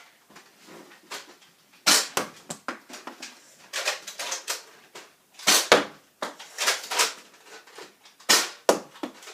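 Nerf N-Strike Recon CS-6 foam-dart blaster being primed and fired three times, about three seconds apart: each shot is a quick cluster of sharp plastic clacks from the slide and spring plunger.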